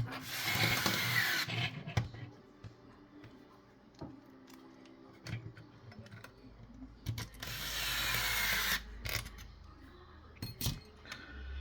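Small electric screwdriver driving in the head unit's small screws: two short runs of about a second and a half each, with light clicks of the screws and tools between.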